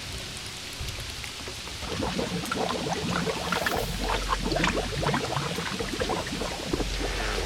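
Rain falling, with many separate drops splashing, heavier and louder from about two seconds in.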